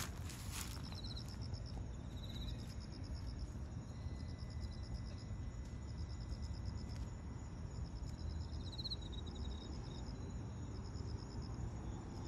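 Insects chirping in the night, in short, evenly pulsed high trills that repeat over and over, above a low steady rumble. There are a couple of sharp clicks right at the start.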